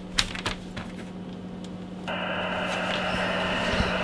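A few clicks as a loudspeaker is plugged in. About two seconds in, the ICOM IC-201 receiver's SSB hiss comes up through the speaker, narrow-band and slowly growing louder. A steady low hum runs underneath.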